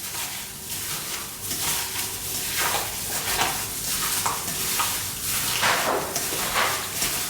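Gloved hands rubbing and mixing raw chicken pieces coated in a dry spice rub: irregular wet squishing and rustling, several strokes a second.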